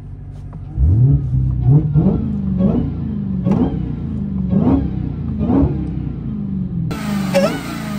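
Dodge Hellcat's supercharged 6.2-litre V8 idling, then revved hard about a second in and blipped over and over, about once a second, each rev rising and falling in pitch. Near the end the sound changes abruptly where a second recording is cut in, and the revving carries on.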